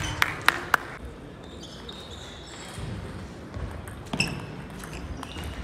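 Table tennis ball clicking in a large hall: three quick, evenly spaced bounces in the first second, then a rally of racket hits and table bounces from about four seconds in.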